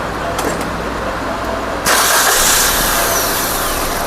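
Maruti Ertiga's four-cylinder petrol engine idling steadily, freshly repaired after a misfire. About two seconds in, a loud steady hiss comes in suddenly over the idle.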